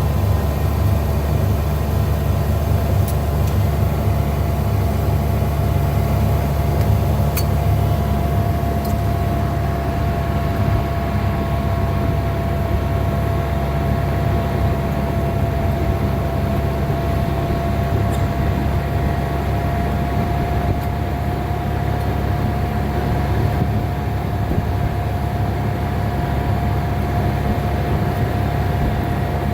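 A motor vehicle running steadily, its engine and road noise making a constant low drone with a steady whine above it.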